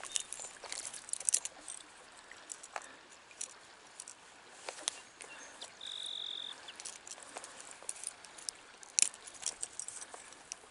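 Scattered small clicks and light metallic rattles from handling a deeply hooked brown trout and working the fishing lure's hook free. There is one short, steady high note about six seconds in.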